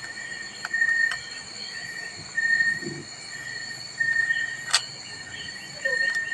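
Steady high-pitched buzzing tones that swell and fade every second or two, with a few sharp plastic clicks from a Rubik's cube being twisted, the clearest about five seconds in.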